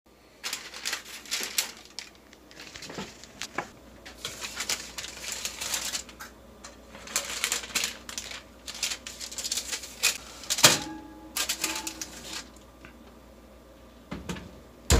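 Baking trays lined with parchment paper being slid onto an oven's wire racks: paper rustling and metal racks and pans clattering, with a sharp metallic clank that rings briefly about ten seconds in. A heavy thump at the end as the oven door shuts.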